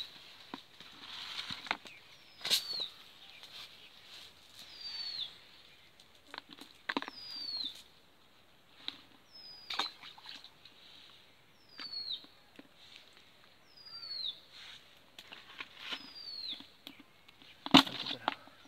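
A bird calling a short falling whistle over and over, about every two seconds. Between the calls come scattered rustles and clicks of a cast net and fish being handled on grass, with a sharp click near the end.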